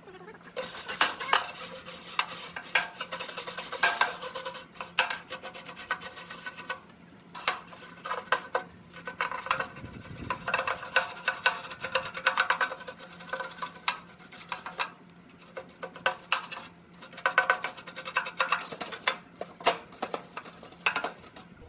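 Hand scrub brush scrubbing grease off the inside of a Weber Genesis II gas grill's cookbox, in quick back-and-forth strokes with a few short pauses.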